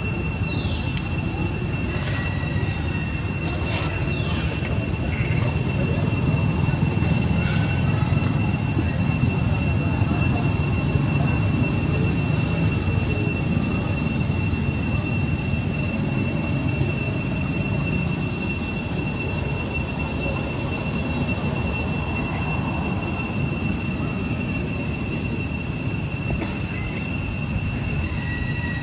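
Insects droning: a steady, unbroken high-pitched whine over a low rushing background noise, with a few faint short chirps in the first few seconds.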